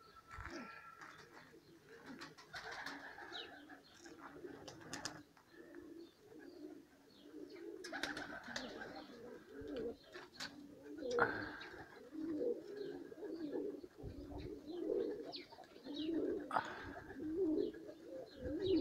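Domestic pigeons cooing over and over in low, rolling calls, with a few short sharp sounds in between.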